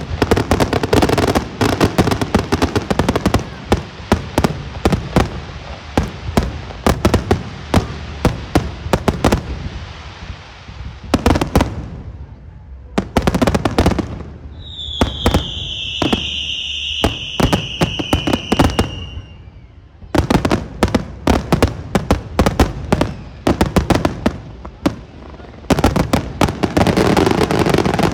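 Aerial fireworks shells bursting in rapid volleys of booms and crackles. The volleys thin out about ten seconds in, a long high whistle sounds for about five seconds midway, and a dense volley builds again near the end.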